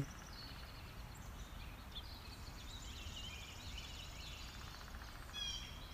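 Faint outdoor ambience: distant birds singing over a low steady background noise, with a short chirping call near the end.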